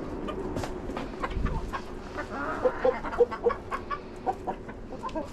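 Backyard hens clucking in short notes, among many scattered sharp ticks.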